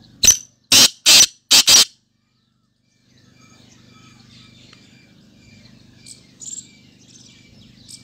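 Black francolin calling: four loud, harsh notes in about a second and a half. Faint chirping follows over a low steady hum.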